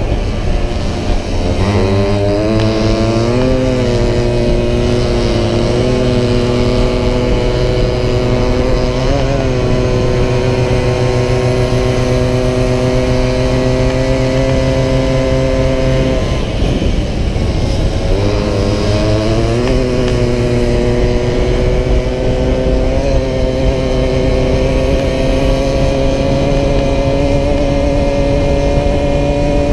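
Small two-stroke engine of a racing Solex moped running hard, heard from on board over wind rush. Its note drops and climbs back again a few times as it slows for bends, most deeply just past halfway, then rises slowly near the end.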